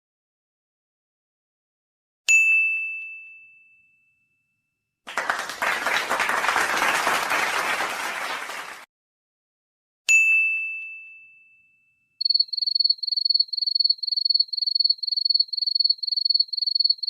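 A string of stock sound effects. A bright bell-like ding rings out and fades, followed by a dense burst of noise lasting about four seconds. A second identical ding comes next, then a high electronic beeping at about three pulses a second.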